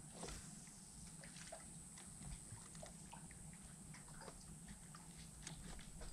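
Near silence, with faint scattered small ticks and clicks over a low background hum.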